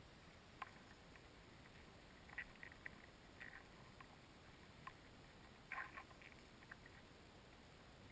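Near silence recorded under water, a faint steady hiss with a few soft, irregular clicks and crackles, the largest cluster about six seconds in.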